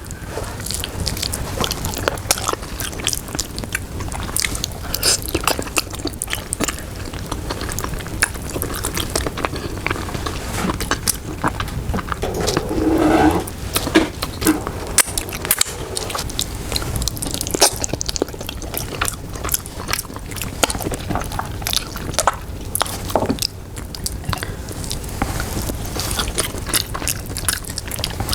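Close-miked mukbang eating: wet chewing and mouth clicks on soft braised pork leg (pata tim) and rice, irregular and continuous.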